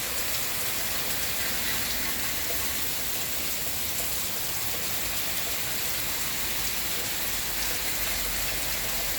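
Steady rainfall: an even hiss of rain with faint scattered drops on a surface.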